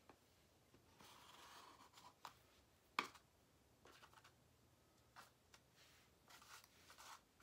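Faint scratch of a Sharpie permanent marker drawn across paper as an outline is traced around a square container. About three seconds in there is one sharp tap as the container is set down on the paper, followed by a few soft taps and rustles.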